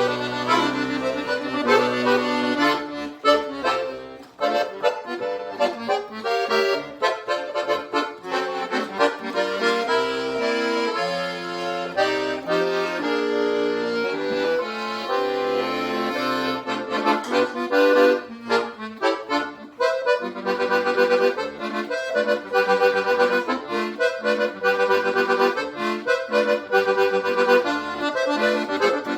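Instrumental forró passage led by sanfona (accordion) playing a melody, over a band of zabumba, triangle and other hand percussion, electric bass, guitar and drums keeping a steady beat.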